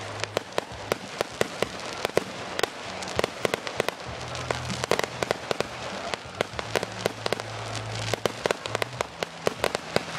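Fireworks going off, a rapid string of sharp bangs and crackles, several a second, over a low steady hum.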